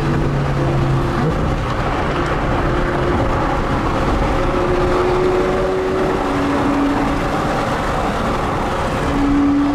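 Car driving with a steady rush of engine and road noise. A low engine note steps to a new pitch a few times.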